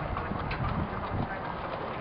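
Thoroughbred racehorses' hooves clip-clopping as they are walked around the paddock, with a few dull thuds about half a second to a second in.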